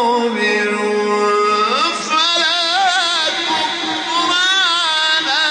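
Male Quran reciter chanting a verse in the melodic mujawwad style: a long held note, then about two seconds in a rising glide into a wavering, ornamented melisma.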